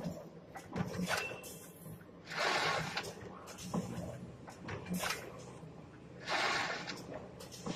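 Wire hanger making machine running through its cycle: a short hiss comes about every four seconds, with sharp clicks and knocks between them over a steady low hum.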